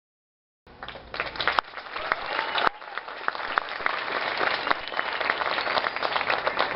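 Audience applauding, with a few voices in the crowd; the clapping starts abruptly just under a second in.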